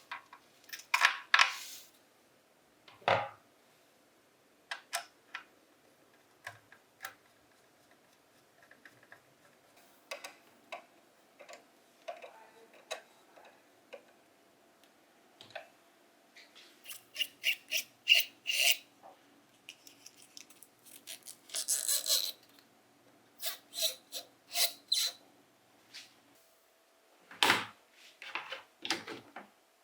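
Scattered small clicks, taps and scrapes of metal parts being handled and fitted, some in quick runs of several.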